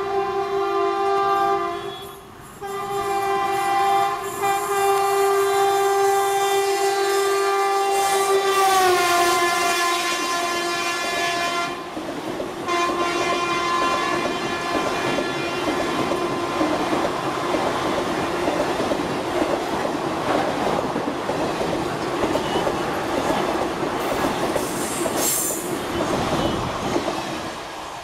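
A WAP-4 electric locomotive honking its horn almost continuously as it passes at speed, with a short break about two seconds in and a drop in the horn's pitch about nine seconds in as the locomotive goes by. Then the passenger coaches rattle and clatter past over the rail joints, with a brief high squeal near the end.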